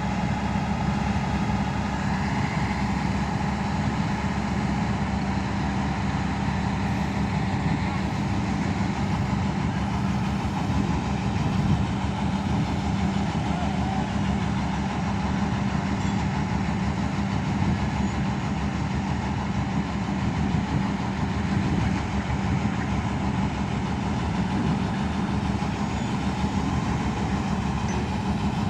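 Heavy construction machinery engine running steadily at an even speed, a constant low hum with no revs or pauses.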